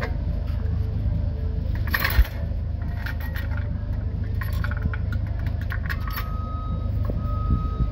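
Metal clinks and scrapes of S-cam drum brake shoes and their hardware being handled and fitted by hand, with one sharp clank about two seconds in, over a steady low hum.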